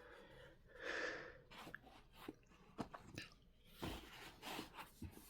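Faint scattered light knocks and rustles of things being handled, with a louder rush of noise about a second in.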